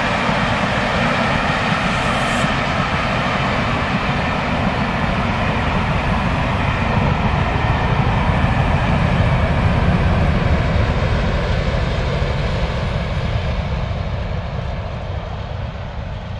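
Diesel-hauled Pullman express train running past on the main line: a steady heavy rumble of locomotive and coaches that swells slightly, then fades over the last few seconds as the train draws away.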